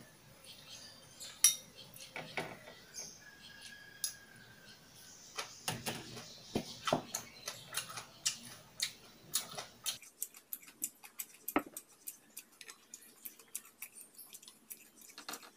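Chopsticks clinking and tapping against bowls and a frying pan, with sharp clinks every second or so and a quicker run of small clicks and taps from about ten seconds in.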